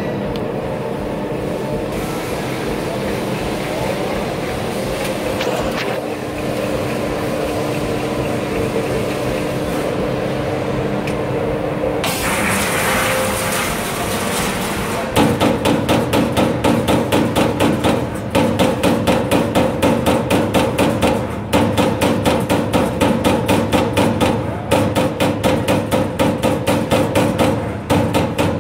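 Servo-driven CNC turret punch press hitting sheet metal in a fast, even run of sharp strokes, about four a second. The strokes start about halfway through, after a stretch of steady machine and hall hum.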